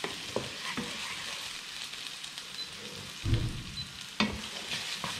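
Sliced red onion sizzling in oil in a frying pan while it is stirred with a wooden spoon, with a steady hiss and a few sharp clicks and a soft thump from the spoon and pan.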